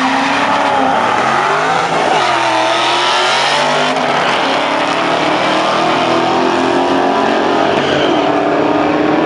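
Two Ford Mustangs racing down a drag strip at full throttle, their engines loud, the revs climbing and dropping back with each gear change.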